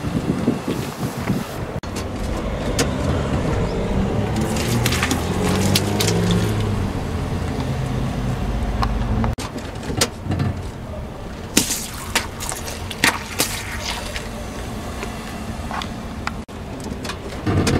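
Car engine running low as the car creeps forward on asphalt, a steady rumble for the first half. After that, a scatter of sharp cracks and pops as objects are crushed under the tyre.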